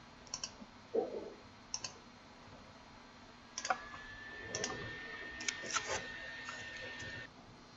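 Computer mouse buttons clicking a handful of times, several clicks in quick pairs, as the setup wizard is clicked through to Finish. A faint steady high tone runs through the second half and stops about a second before the end.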